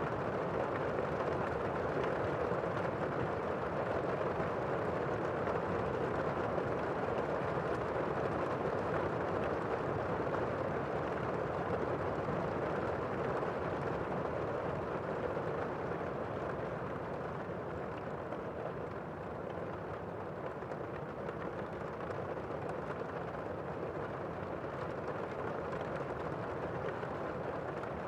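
Steady rainfall, an even rushing hiss without thunder claps, easing a little about two-thirds of the way through.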